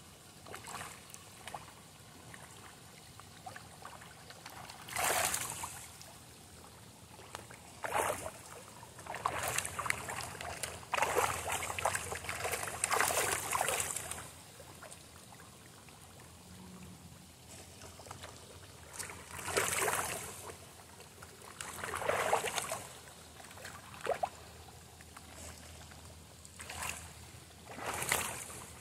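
Koi feeding on floating pellets at the pond surface, splashing and gulping in irregular bursts a second or two apart over a steady faint background.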